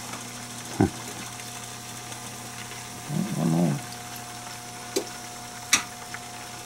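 Hot oil bubbling in a pot of frying chicken, with metal tongs clicking sharply against the pot and the wire rack a few times, loudest near the end. About halfway through, a man's voice gives a short hum.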